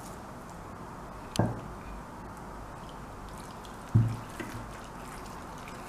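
Water being added to a bowl of grated cucumber and wheat-flour dough: faint liquid and dripping sounds, with two short sudden sounds, the second, about four seconds in, the loudest.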